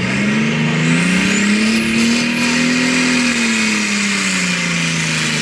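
Farm tractor's diesel engine at full throttle, dragging a weighted pulling sled. Its pitch climbs over the first couple of seconds, then sinks back as the engine lugs under the growing load.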